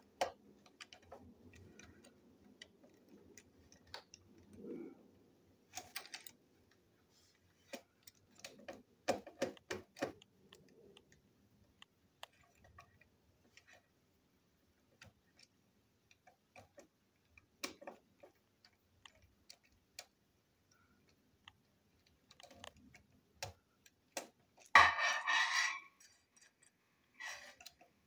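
Small plastic and metal parts of a model locomotive chassis clicking and ticking as a screwdriver works on its screws, in scattered light taps. A louder clatter comes near the end.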